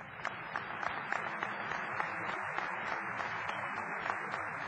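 Audience applauding: many hands clapping, breaking out suddenly and holding steady.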